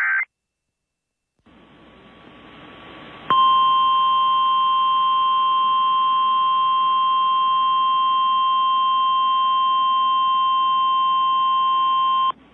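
NOAA Weather Radio's warning alarm tone, the 1050 Hz attention signal that announces a warning: one steady high-pitched tone, about nine seconds long, over radio hiss, cutting off abruptly. Before it comes the very end of a screeching data burst, a short silence, and hiss rising for about two seconds.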